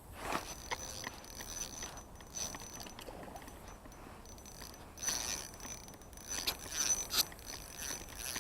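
Irregular clicks, clinks and scraping of small gear being handled at close range, loudest in clusters about five seconds in and again near the end.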